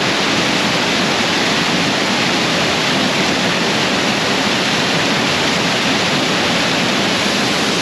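A waterfall in heavy flood, raging after heavy winter rain: a loud, steady rush of falling water.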